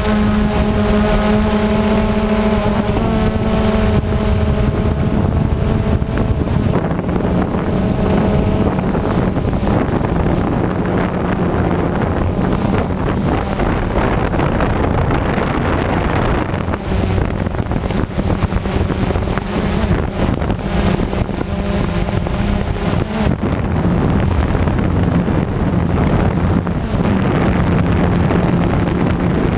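Multirotor drone's electric motors and propellers whining, heard through the onboard camera's microphone with heavy wind noise. The motor pitch shifts a few times in the first ten seconds, after which the wind noise dominates over a steady low hum.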